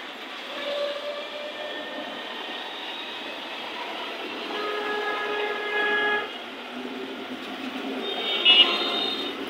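Street background noise with several horn blasts at different pitches: a short one about a second in, a longer steady one about five seconds in, and a brief high-pitched one near the end.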